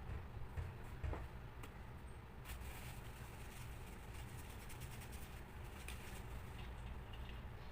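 Faint scattered clicks and light taps over a steady low hum.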